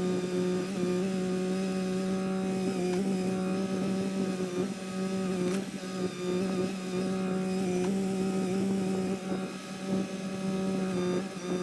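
Kymron XH20D mini-excavator running at steady throttle while working, a steady droning hum with a strong single tone, dipping briefly a few times as the load shifts.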